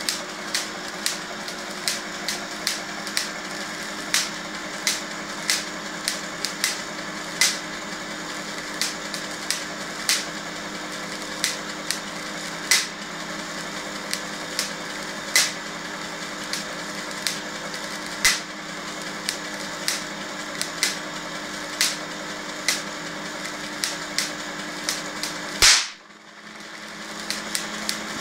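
Van de Graaff generator running with a steady hum while small static sparks snap irregularly, about one or two a second. Near the end comes one loud crack as a fat spark discharges the milk-jug Leyden jar inside the container from top to bottom; after it the hum drops away for a moment and returns.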